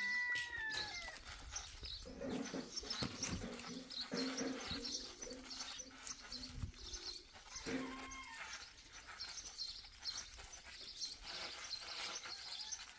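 Small birds chirping repeatedly, with a few longer, lower pitched animal calls in the middle.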